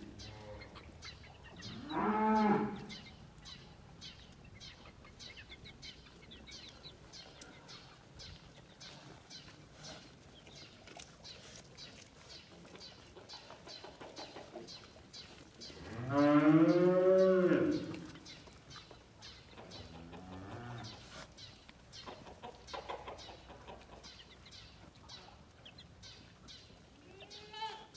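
Farm livestock calling: a short call about two seconds in, a longer, louder one about sixteen seconds in, and fainter calls around twenty seconds and near the end. Under them runs a steady patter of rain.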